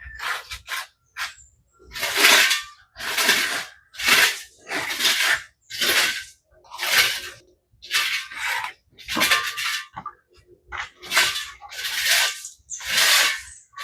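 Rhythmic scraping strokes of a hand tool working wet cement plaster, about one stroke a second.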